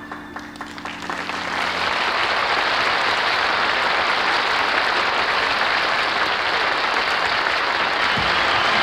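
Audience applause building up as the orchestra's last held string chord dies away, then steady, loud clapping.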